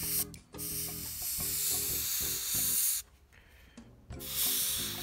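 Harder & Steenbeck Infinity airbrush with a 0.15 mm needle and nozzle spraying paint, a steady hiss. It cuts out briefly near the start and for about a second around three seconds in as the trigger is let off, then starts again.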